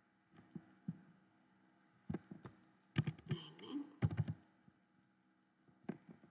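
Computer keyboard being typed on: a few separate keystrokes, then a quick run of keys in the middle and one more near the end, as a number in the code is deleted and retyped.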